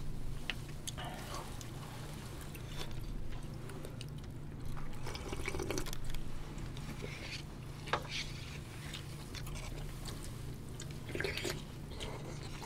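People eating: slurping and sipping from bowls of soup, with short clicks of chopsticks and containers, over a steady low hum.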